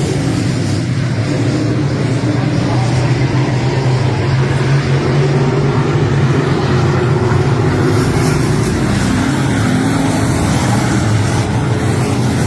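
Race car engine running at racing speed, its pitch holding fairly steady with small rises and falls.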